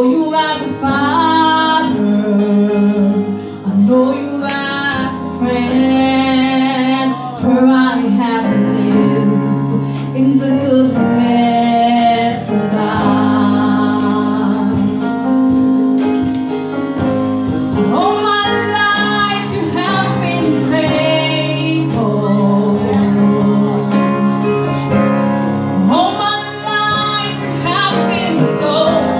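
A woman singing a gospel worship song into a microphone, amplified over loudspeakers, with sustained chords held underneath by the accompaniment.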